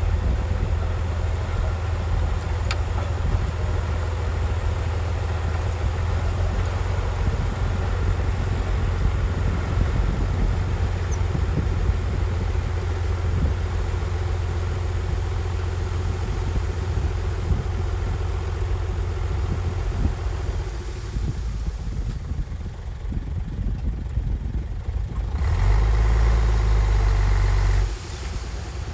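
Heavy diesel construction machinery engine running steadily, a deep low drone. About three-quarters of the way through the sound thins, then a louder steady engine stretch of about two seconds follows near the end.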